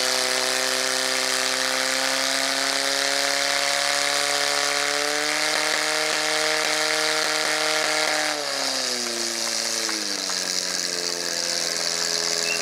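Portable fire pump engine running at high revs with a steady pitch, driving water through the hoses to the targets. About eight seconds in it throttles down, and it drops again about two seconds later.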